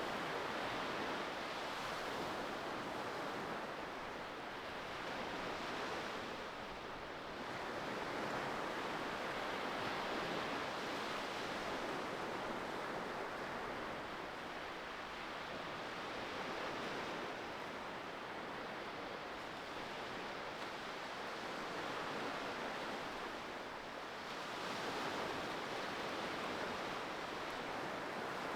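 Ocean surf: a continuous wash of waves that swells and eases slowly over several seconds, dipping briefly about a quarter of the way in and again near the end.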